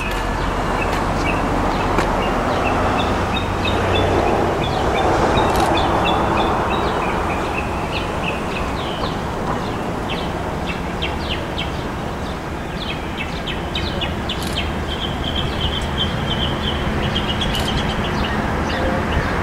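Steady low rumble of an NJ Transit ALP-45DP dual-mode locomotive approaching from a distance under diesel power, with birds chirping over it, including a longer run of chirps near the end.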